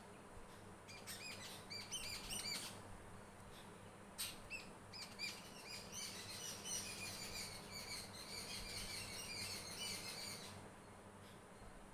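Small birds chirping, with quick high-pitched repeated calls. There is a short spell about a second in, then a longer stretch of busy chirping from about four seconds in that stops shortly before the end.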